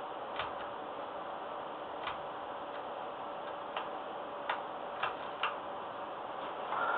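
A steady hum with a few light, irregularly spaced clicks, about six of them.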